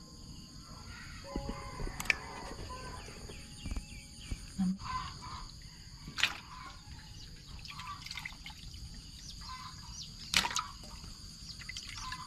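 Hens clucking now and then over a steady, high insect drone, with three sharp clicks or knocks spaced about four seconds apart.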